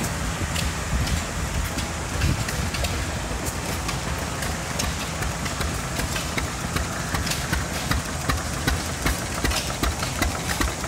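Antique stationary gas engine running with a steady low chug. In the last few seconds its firing beats become sharper and more regular, about two to three a second.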